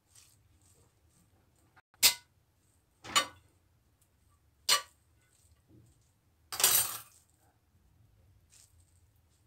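Sharp clinks of a ceramic serving plate as a hand works steamed vermicelli on it: three single clinks about two, three and four and a half seconds in, then a longer clatter near seven seconds.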